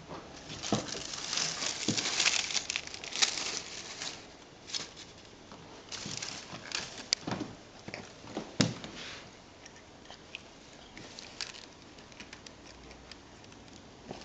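A cat pulling and biting at a bundle of dry decorative stalks with a foil-wrapped base: rustling, crinkling and crackling. The crackle is densest in the first few seconds, turns into separate sharp clicks in the middle, and thins out toward the end.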